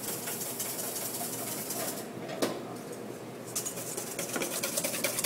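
Wire whisk beating egg yolks in a stainless steel bowl, a fast scraping, clicking clatter of the wires against the metal. It thins out for about a second and a half near the middle, with one sharper clink, then picks up again. The yolks are being cooked into a sabayon for hollandaise and are thickening to the point where the trail of the whisk shows.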